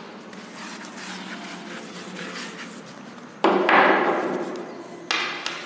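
Two sharp knocks of objects on a wooden desk: a loud one about three and a half seconds in that trails off over a second or so, and a shorter one near the end.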